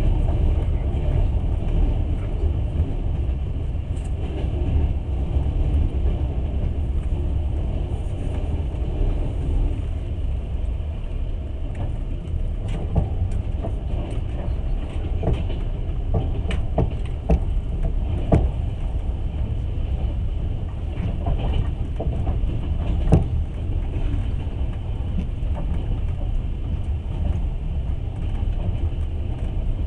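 Passenger train running along the track, heard from inside the carriage: a steady low rumble of wheels on rail, with a scattering of sharp clicks and knocks through the middle of the stretch.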